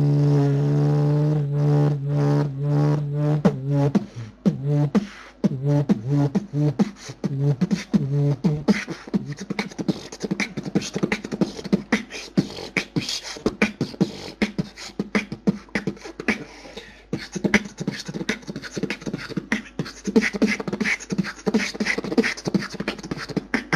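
Beatboxing heard over a TeamSpeak voice-chat connection. It opens with a held low hum, breaks into short pulsed pitched notes, and from about nine seconds in turns into a fast run of percussive clicks and hits.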